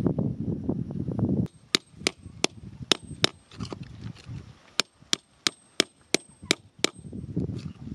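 Gravelly soil and stones crunching and scraping as they are dug, then a series of sharp knocks, about three a second with a short pause midway, as a small hand digging tool strikes the stones.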